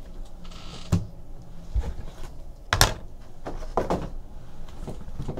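Trading cards, packs and card boxes handled on a tabletop: a brief rustle near the start, then a few light knocks and taps, the sharpest about three seconds in.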